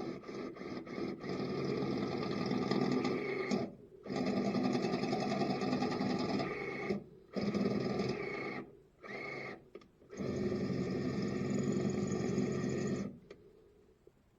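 Electric hand drill running in several bursts of a few seconds, stopping and starting, with quick trigger blips at first: a hole being drilled through sheet metal for a rivnut.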